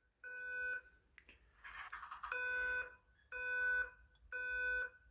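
Fire alarm speaker strobe sounding the code 3 (temporal-3) evacuation tone: one beep, a pause, then a set of three half-second beeps about a second apart.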